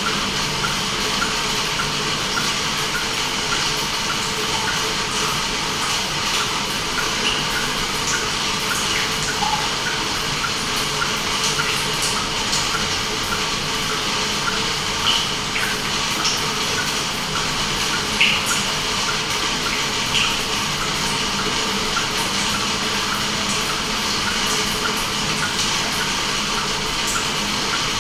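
Steady rushing and bubbling of water, with a faint regular tick about twice a second and a few small drips or pops.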